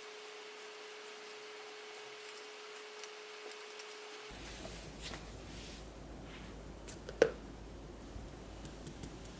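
Quiet room with faint scattered ticks and small handling noises, and one sharp click about seven seconds in. The background changes abruptly a little past four seconds, a faint steady tone giving way to a low hum.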